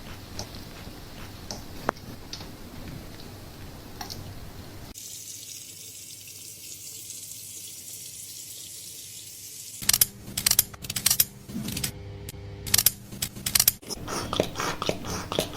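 Running water during a salon hair wash: first a steady hiss, then over the last third a run of loud, sharp crackling clicks and rubbing.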